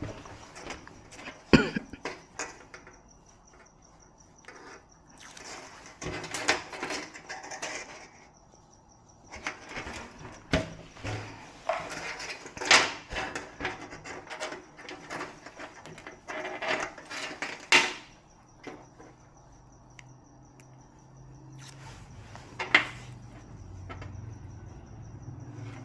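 Irregular clicks, clinks and rustles of tools and parts being handled during a TV repair, with a faint steady high insect trill in the quieter gaps. A low hum comes in about two-thirds of the way through.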